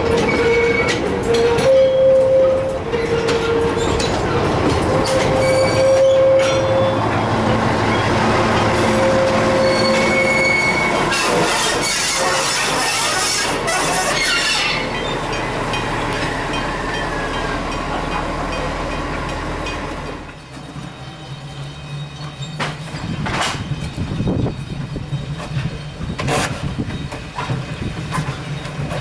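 Railway wagons' steel wheels squealing on a curve as a slow train rolls past, with high squeal tones that come and go and the clatter of wheels over the track. About two-thirds of the way through the level drops as the train moves off, leaving a lower steady hum and a couple of sharp clicks.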